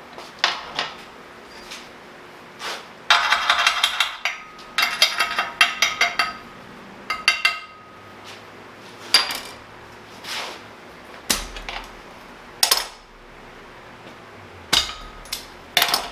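Millermatic 251 MIG welder laying short tack welds with .045 flux-core wire on steel plate: three bursts of crackling, each about a second long, in the first half. Single metallic knocks and clanks fall in between.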